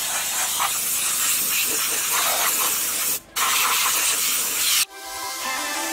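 Steam hissing hard from the spray gun of a diesel-fired steam car-wash machine as it is played over a car's door and interior, stopping for a moment about three seconds in. Near the end the hiss cuts off and music comes in.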